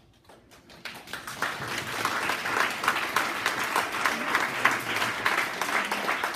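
Audience applauding. It starts with a few scattered claps and swells into steady clapping about a second in.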